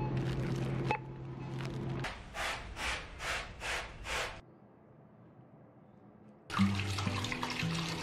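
Water rushing, with a steady low hum, for about two seconds, followed by about six short, evenly spaced hissing bursts; background music with bass notes comes in near the end.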